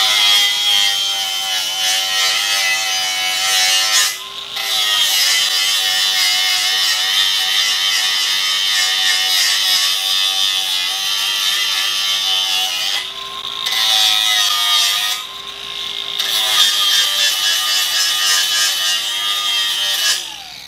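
DeWalt angle grinder with a silicon carbide disc grinding mill scale off a steel beam. It gives a steady high whine over a hissing rush of disc on steel. The sound eases off and the pitch rises briefly about three times, and the grinder winds down just before the end.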